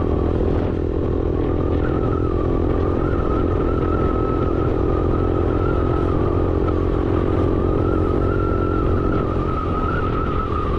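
A vehicle running steadily on the road, engine and road noise heard from on board while driving, with a thin steady whine over it.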